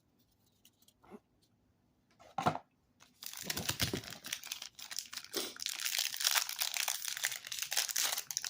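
A plastic trading-card pack wrapper being torn open and crinkled. Two soft taps come first; then, about three seconds in, continuous crackling starts and lasts to the end.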